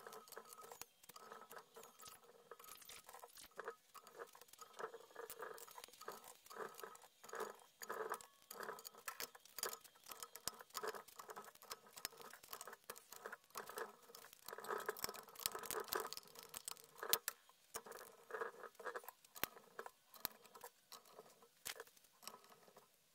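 Faint, irregular clicking and tapping of small metal hardware: screws, nuts and panel-mount connectors being fitted into a thin aluminium enclosure panel by hand.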